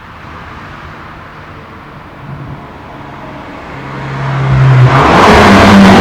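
Hyundai i30 N's turbocharged 2.0-litre four-cylinder running at a low, steady note, then revving up about four seconds in, its sound rising in pitch and getting much louder, loud by the end.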